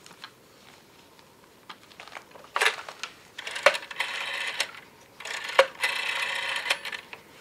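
A few light clicks, then a short rattle and two clattering, jingling bursts of about a second and a half each, with sharp clicks inside them.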